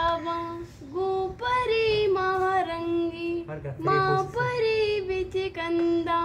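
A young female voice singing a song unaccompanied, in long held notes with short breaks between phrases.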